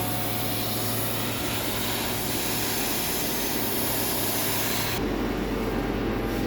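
TQL-LCY620 sheet-metal laser cutting machine running: a steady hiss over a low machine hum. About five seconds in the high hiss stops abruptly, leaving a lower, duller machine noise.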